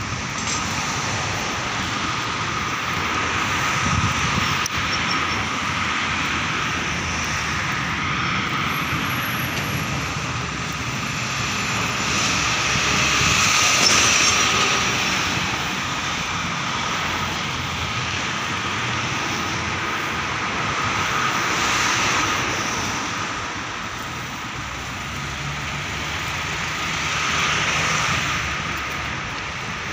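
Town street traffic: a steady hum of cars with vehicles passing now and then, swelling several times.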